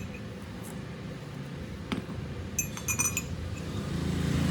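Metal parts clinking: a single knock about two seconds in, then a quick run of four or five ringing clinks, over a steady low hum.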